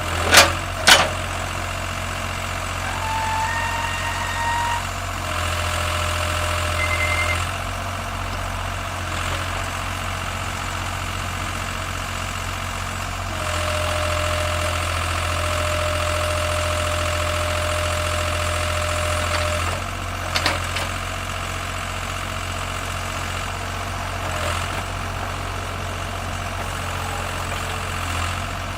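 Mini excavator's diesel engine running steadily, its note rising for a couple of seconds and later for about six seconds as the machine is worked. Sharp metallic clanks come twice right at the start and once about two-thirds through.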